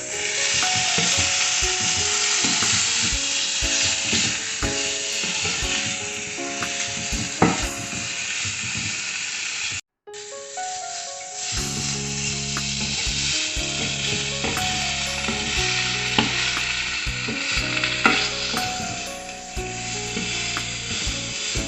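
Chicken frying in a thick masala of spices and crushed roasted coconut with no water added, sizzling steadily, with occasional clicks of a spoon against the pan. The sound drops out for a moment about halfway through.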